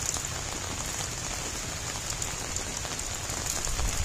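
Steady rain falling, with many separate drops ticking.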